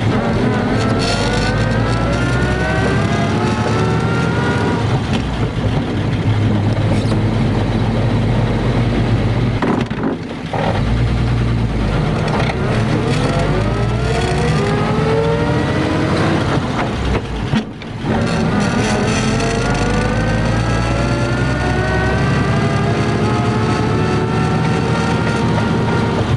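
1950 Ford F2 pickup's non-synchro four-speed spur-gear transmission whining over the engine as the truck accelerates through the gears, the whine rising in pitch in each gear. The whine drops out for double-clutched shifts about ten and eighteen seconds in, then climbs again.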